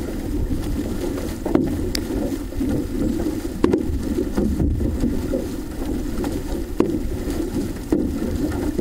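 Six-person outrigger canoe being paddled: a steady rush of water and wind with a low rumble, broken by a few sharp knocks from the paddling.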